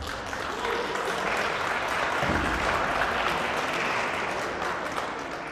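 A crowd of spectators applauding, building over the first few seconds and then dying away toward the end.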